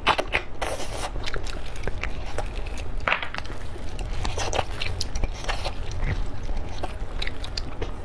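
Mouth sounds of eating braised lamb leg bones: sucking and slurping marrow from the bone ends, and biting and chewing meat off a bone, with many wet clicks.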